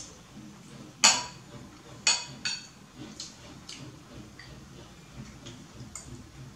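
A metal spoon clinking and tapping in a ceramic bowl during eating: a sharp ringing clink about a second in, two more about a second later, then a few lighter taps.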